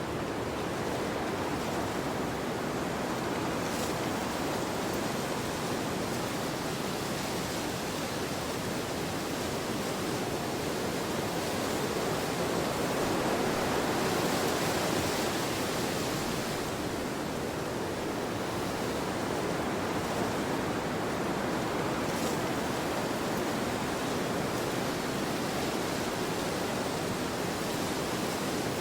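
Wind blowing in a steady, even rush that swells a little about halfway through.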